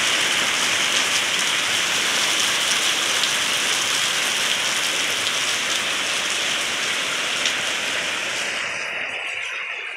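Torrential rain pouring down in a steady, dense hiss. Near the end the sound thins out and drops in level.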